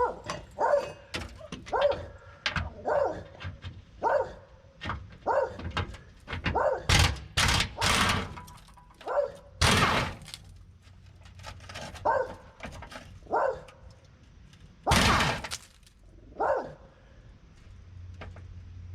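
A dog barking repeatedly, short single barks roughly once a second with a few gaps. Several loud bangs cut in, a cluster about halfway through and one more near the end.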